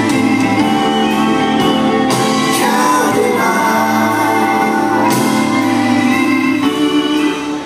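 Live rock band playing through a PA: electric guitars, bass guitar, drums and keyboards with singing.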